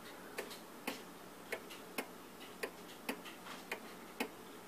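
1846 Chauncey Boardman ogee shelf clock's brass movement ticking, a little under two ticks a second, with the gaps alternating short and long. The uneven beat comes from the clock being tilted off level, which puts it out of beat.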